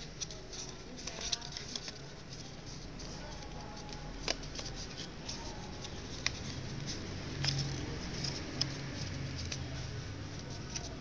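A sheet of paper being folded and creased by hand: soft rustling broken by a handful of sharp paper crackles at irregular moments.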